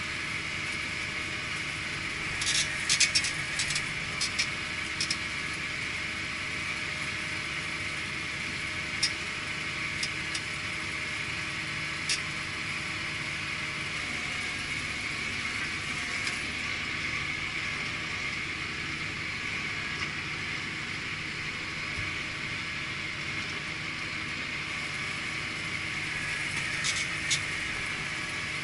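Claas Arion 640 tractor's six-cylinder diesel engine running at steady revs while spreading fertilizer, heard from inside the cab, with a steady high hum over it. Scattered sharp clicks and rattles, a cluster a few seconds in, a few more near the middle, and again near the end.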